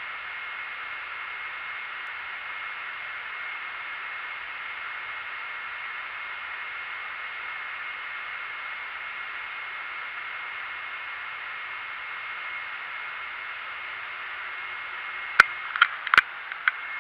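Steady hiss with a faint high whine running underneath, then a quick cluster of sharp knocks and clicks about fifteen seconds in as the camera is handled and moved.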